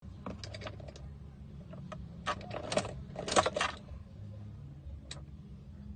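Short bursts of light metallic clinking and rattling, several times, over a steady low hum.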